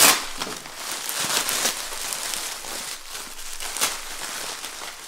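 Parcel packaging being unwrapped by hand: irregular crinkling and rustling with scattered sharp crackles.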